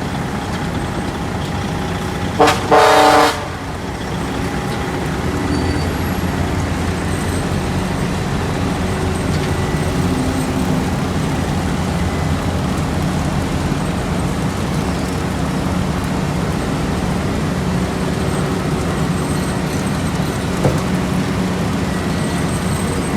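Diesel engines of heavy road-paving machinery running steadily, with a loud vehicle horn sounding once, about two and a half seconds in, for under a second, just after a brief blip.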